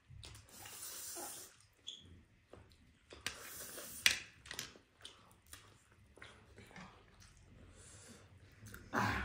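Noodles being slurped and chewed close to the microphone: a few hissing slurps, each about a second long, with small mouth clicks between and a sharp click about four seconds in.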